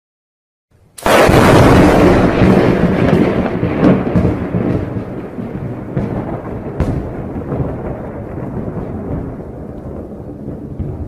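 Thunder sound effect: a sudden loud crack about a second in, followed by a long rolling rumble that slowly fades, with a couple of sharper cracks partway through.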